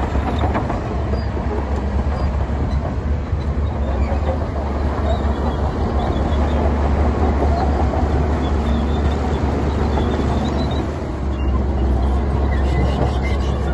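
Heavy diesel earthmoving machinery running: a loud, steady engine rumble with rattling and clanking, easing slightly about eleven seconds in.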